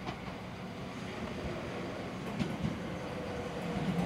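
Ichibata Electric Railway 1000 series electric train running in with a low rumble and a faint steady whine, its wheels knocking over rail joints a few times in the second half.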